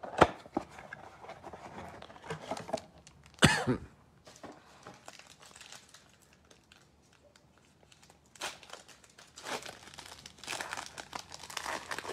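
A cardboard trading-card box being opened and the foil wrapper of a card pack torn open, with crinkling and crackling throughout and one loud sharp tear about three and a half seconds in. The crinkling eases off in the middle, then picks up again in the last few seconds as the foil pack is pulled apart.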